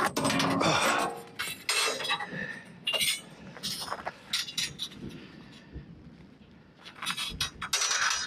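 Steel clinking and scraping as a broken band-sawmill blade is handled and pulled off the mill, in irregular bursts: a cluster in the first couple of seconds, a few around the middle, and more near the end.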